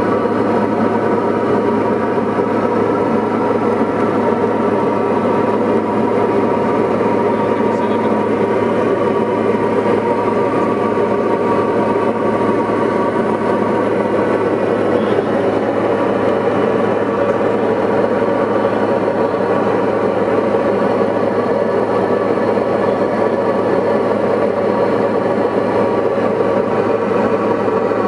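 Diamond DA40 light aircraft's engine and propeller running steadily in flight: an even, unchanging hum with several steady tones over dense low noise.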